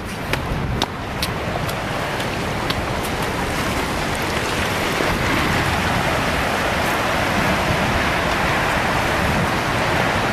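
Steady roar of rushing tsunami water, growing louder about four seconds in, with a few sharp cracks near the start.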